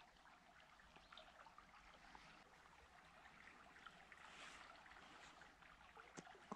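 Near silence: the faint, steady rush of flowing river water, with a few light clicks, one a little clearer about six seconds in.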